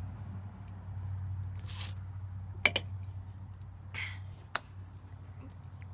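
Quiet handling noise over a steady low hum: two short rustles or breaths and two sharp clicks, a couple of seconds apart, with no burp yet.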